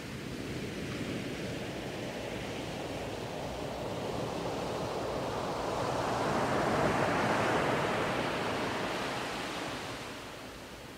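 A rushing noise like surf that swells to its loudest about seven seconds in and then eases off.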